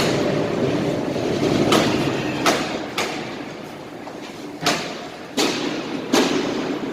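Steady industrial machinery rumble with about six sharp metallic knocks and clanks at irregular intervals.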